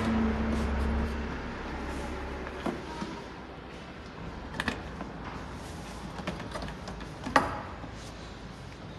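Sharp clicks and knocks of plastic parts being handled while the overfill float sensor in the base of a built-in dishwasher is opened and reset, a few separate clicks several seconds apart, the loudest near the end. A low hum runs for the first two to three seconds, then stops.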